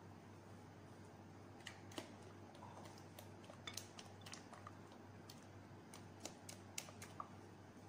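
Soft, irregular clicks and light scrapes of a silicone spatula against a glass mixing bowl as a thick creamy mixture is stirred and folded, over a faint steady low hum.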